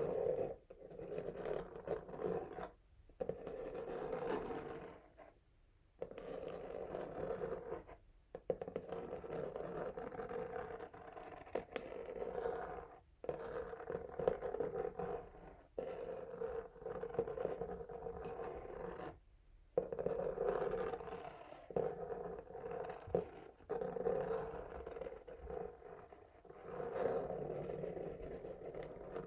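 Fingernails scratching over a textured cardboard box in strokes lasting several seconds, broken by a few short pauses, with occasional sharp taps.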